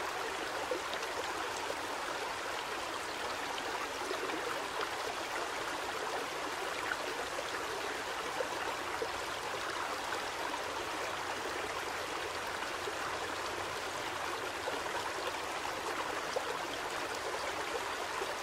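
Steady rushing and babbling of a shallow river flowing over rocks.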